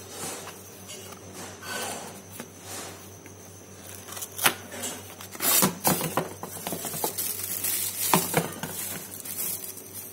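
Rummaging in a woven plastic sack packed with cardboard tool-kit boxes: rustling and rattling of the boxes and sack, with a few sharp clatters about halfway through and again later on. A faint steady high-pitched tone runs underneath.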